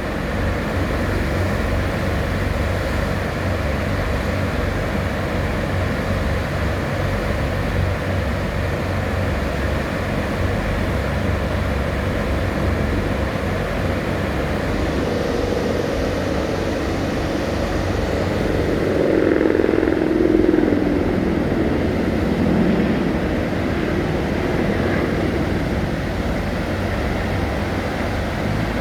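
Steady rush of river rapids and wind. From about 15 s in, a jet boat's engine swells up and falls in pitch, loudest around 20 s, then fades back into the water noise.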